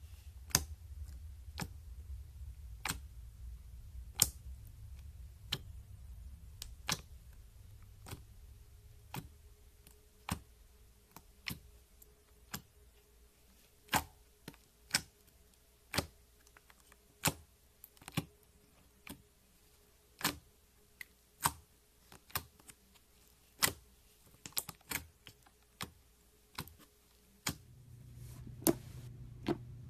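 Sharp pops and clicks from slime being pressed and poked with the fingers in a plastic tub, about one a second at irregular intervals.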